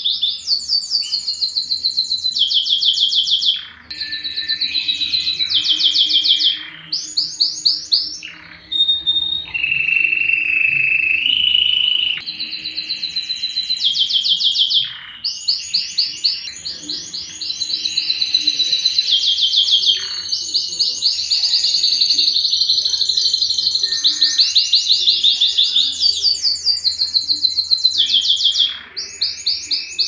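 Domestic canary singing: long phrases of rapid, high-pitched trills and rolls, broken by short pauses, with one steady held note around ten seconds in.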